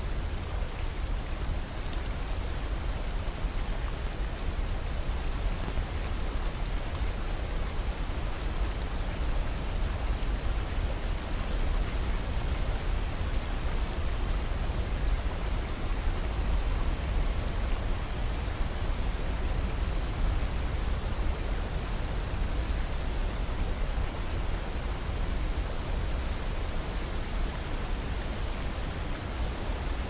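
Mountain river rushing in whitewater rapids over boulders below a waterfall: a steady, unbroken rush of water with a deep low rumble underneath.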